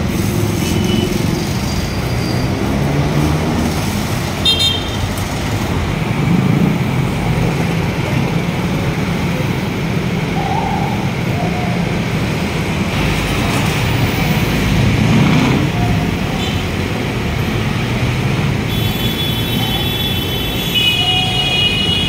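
Busy city street traffic: a steady rumble of car, van and motorcycle engines and tyres passing below. A brief high-pitched tone sounds about four seconds in, and a longer one near the end.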